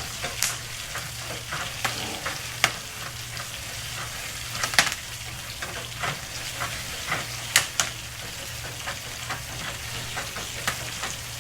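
Popcorn kernels popping in hot oil in a pot on the stove: a steady sizzle with irregular sharp pops, a few of them much louder than the rest.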